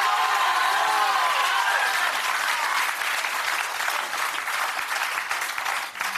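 Game-show studio audience applauding and cheering, with shouts over the clapping in the first two seconds. The applause thins out toward the end. It greets a low-value blue box being revealed.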